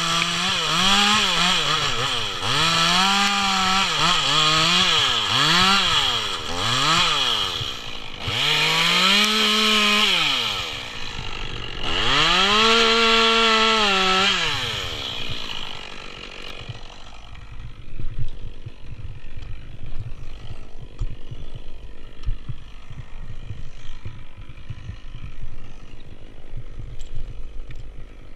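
Chainsaw cutting through the dead Douglas fir's trunk. The engine revs up and drops again and again as it is fed into the wood, about once a second at first and then in longer pulls, until it winds down and stops about 16 seconds in. After that there is a low rumble with scattered knocks.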